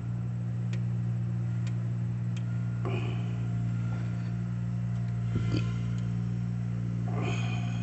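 Steady low machine hum, with a few faint clicks and soft handling noises from multimeter probes being worked on an EGR sensor connector.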